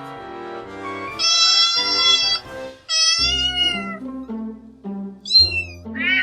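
Domestic cat meowing four times: two long meows with a falling end, then two shorter, higher-pitched calls near the end. Background music with steady low notes plays underneath.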